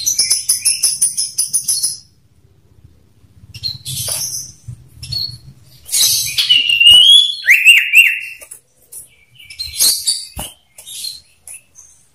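Common iora song and calls: a rapid, high chattering run of notes at the start, a short burst about four seconds in, then a longer phrase about six seconds in with clear whistled notes sliding up and down, and another short burst near the ten-second mark.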